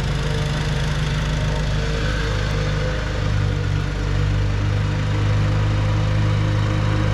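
Simplicity Coronet rear-engine riding mower running steadily as it drives across the lawn, with no cutting out, growing a little louder about five seconds in as it comes closer.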